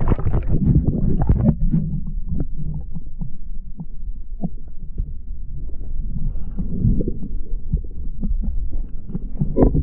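Low, muffled rumbling with irregular soft knocks, the sound of wind buffeting and handling on a camera microphone.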